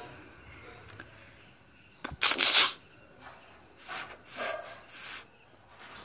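A person making weird breathy mouth noises at a dog: a loud hiss about two seconds in, then three shorter hissing bursts close together.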